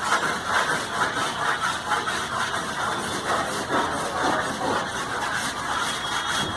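An engine running steadily with a regular pulse, not the engine being rebuilt, which is still apart.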